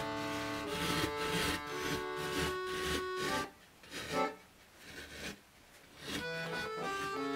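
Background melody of sustained accordion notes that breaks off for a couple of seconds about halfway through. In that break, short scratchy rasps of thread being pulled through the evenweave fabric, the loudest a little after the music stops.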